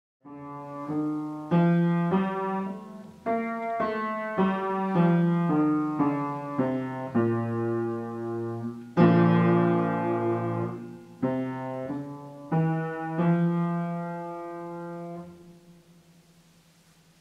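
Piano played slowly: single notes and chords struck about every half second, each ringing and fading, with the loudest chord about nine seconds in. The last chord rings out and dies away near the end.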